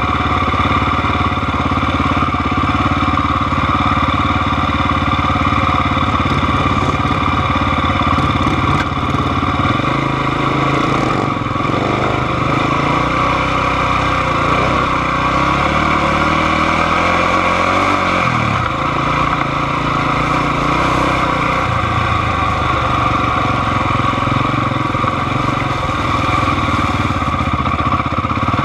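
Close-up off-road engine running, most likely the quad ATV carrying the camera, idling with several shifts in pitch and a rise in revs about 18 seconds in as the ride gets under way.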